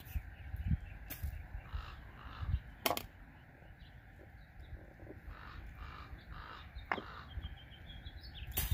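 Birds calling over and over, with a few sharp clicks.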